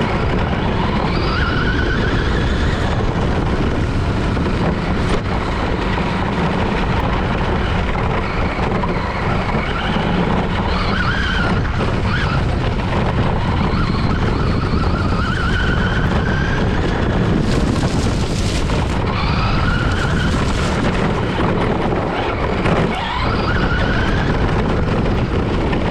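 Rustler RC stadium truck driving, its motor whining up and down in pitch with the throttle over a constant rough rumble of tyres and chassis on the ground.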